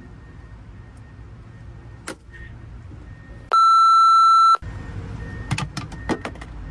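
A censor bleep: one steady high beep about a second long, covering an exclamation, with all other sound cut out beneath it. A click comes before it and a few sharp clicks about a second after it.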